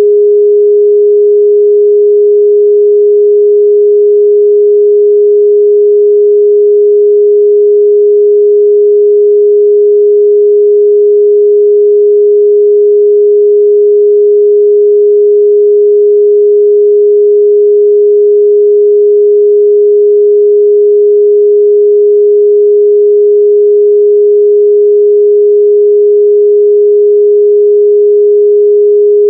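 A steady, loud 414 Hz pure sine tone, one unwavering pitch held without a break, a test tone for checking speaker and headphone mid-range response.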